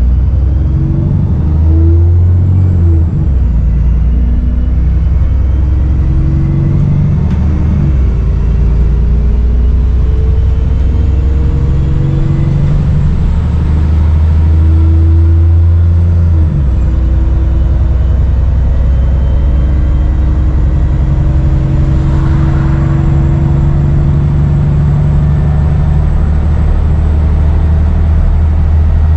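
Dennis Trident 2/Enviro 400 double-decker bus's diesel engine pulling, its pitch rising and dropping back several times as it goes through the gears, with a slight turbo whistle.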